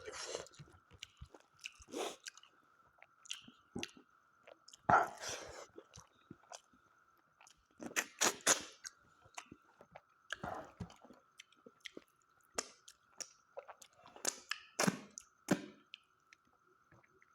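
A person eating mutton curry close to the microphone: irregular chewing, lip smacks and bites. A faint steady high whine runs underneath.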